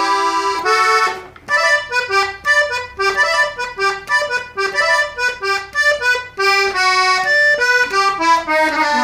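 Hohner Compadre three-row diatonic button accordion playing a fast melody of short, detached notes with chords, about three a second. It settles into a longer held chord near the end.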